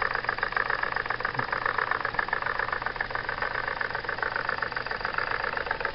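Jensen #55 live steam engine running steadily, driving a belt-powered coffee grinder: a fast, even beat of exhaust and mechanical clatter from the engine and the grinder's gears.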